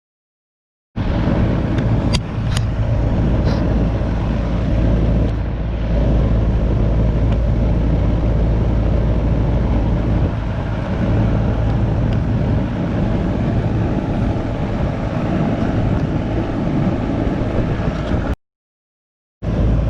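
Goodman air-conditioner condenser unit running with only its fan motor turning, a steady hum and low rumble, with a couple of sharp clicks about two seconds in. The compressor is not running, a fault the unit has from a failed 45/5 MFD run capacitor.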